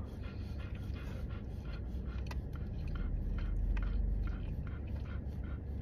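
A person chewing a mouthful of chicken sandwich close to the microphone: many small wet clicks from the mouth. A low rumble underneath swells in the middle.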